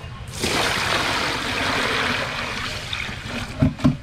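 Water being poured into a plastic basin over live sea urchins: a steady splashing rush that starts just after the beginning and eases off near the end, followed by two quick knocks.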